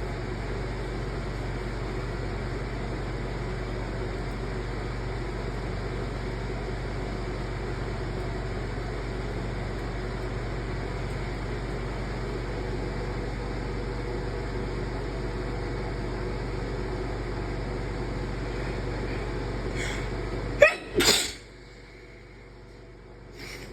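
A person's induced sneeze near the end, a sharp outburst after a couple of faint catches of breath, over a steady background hum. The hum drops away just after the sneeze.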